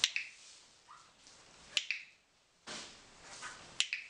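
A dog-training clicker clicks three times, about two seconds apart, each a sharp click; it is marking the Tibetan terrier puppy's correct behaviour for a reward.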